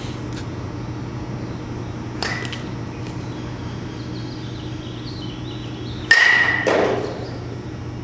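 Metal baseball bat hitting a pitched ball twice: a lighter hit about two seconds in and a louder, solid one about six seconds in. Each contact leaves a short ringing tone, and the second is followed by a soft thud.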